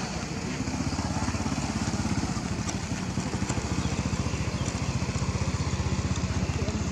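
A small engine running steadily with a fast, even pulse and no change in speed.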